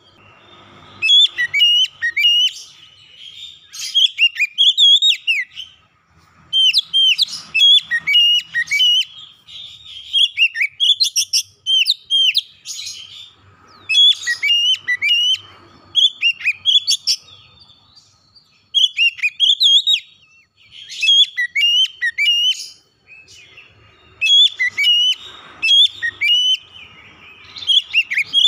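Oriental magpie-robin singing: quick, varied phrases of rising and falling whistled notes, coming in bursts of a few seconds with short pauses between them.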